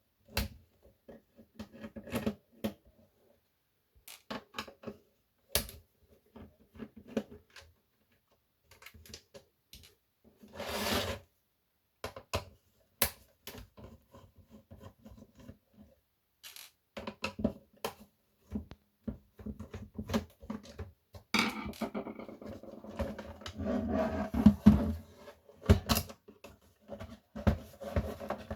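Hands and tools working on a tape dictation machine's plastic case and parts: scattered clicks and taps, a short rasp about eleven seconds in, and a longer stretch of scraping and rubbing from about twenty-one seconds in.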